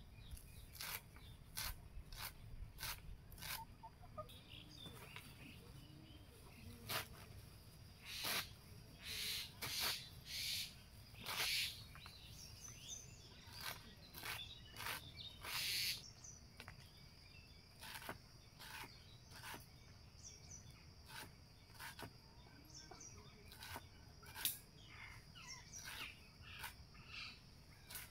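Green beans and then bottle gourd leaves being cut against a boti, a fixed curved blade: irregular crisp snaps, with a few longer rustling swishes around the middle. Birds chirp in the background.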